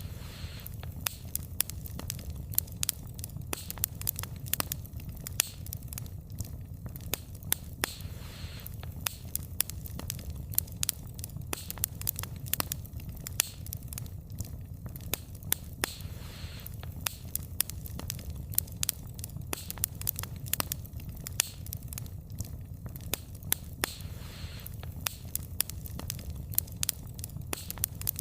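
Wood fire burning, its logs crackling with frequent sharp snaps and pops over a steady low rumble of the flames. A faint hiss swells about every eight seconds.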